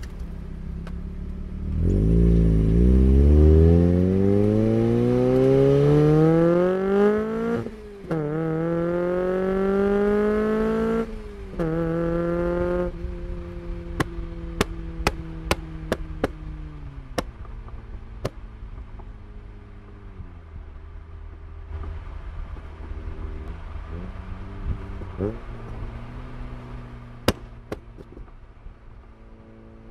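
NB2 Mazda Miata's 1.8-litre four-cylinder through a full aftermarket exhaust, heard from inside the cabin. It revs hard in three rising pulls with quick upshifts between them. On lift-off it fires a string of sharp pops and bangs from its pops-and-bangs tune, with a few more cracks as it coasts and cruises.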